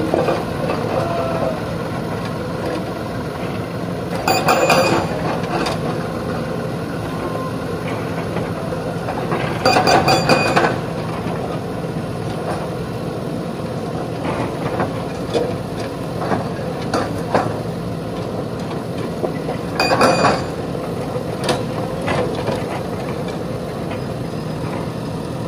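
Diesel engines of farm tractors hauling loaded trolleys, and of a JCB backhoe loader, running steadily. Short louder bursts of noise come about four, ten and twenty seconds in.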